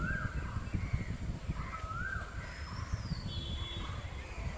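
A crow cawing about every two seconds over the low rumble of a passenger train rolling away down the line. Another bird gives a short falling whistle near the middle.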